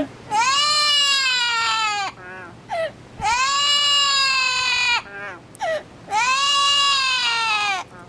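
Amazon parrot giving three long, drawn-out calls, each close to two seconds and arching up then down in pitch, much like a crying wail, with short chirps in the gaps between them.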